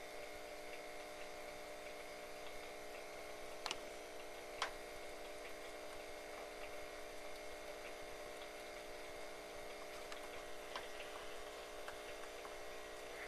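Deer mouse gnawing on a small peeled oak stick: faint, scattered ticks and scrapes, with a few sharper clicks, over a steady hum.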